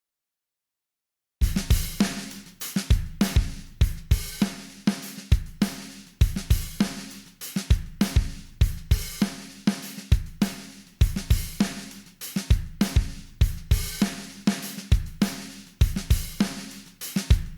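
Dead digital silence for about a second and a half, then a drum kit groove starts up: kick, snare, hi-hat and cymbal hits in a steady beat.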